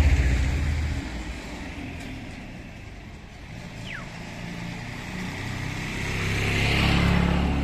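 Motor vehicles passing on a road: one engine is loud at the start and fades within about a second, and another approaches and is loudest about seven seconds in.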